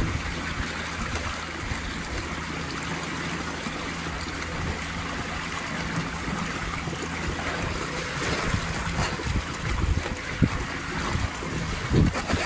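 A small boat under way: water rushing and splashing along the hull over a steady low hum. Wind buffets the microphone in uneven thumps near the end.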